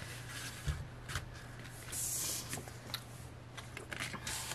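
Photocards and paper inserts being handled and laid down: light taps and clicks, with a brief sliding rustle about two seconds in and another near the end.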